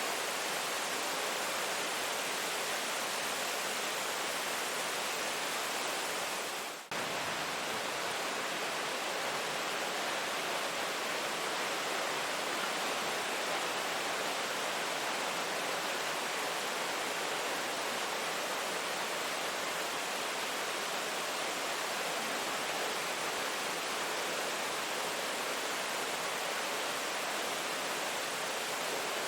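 Steady rain falling, an even hiss with no single drops standing out. It dips briefly about seven seconds in.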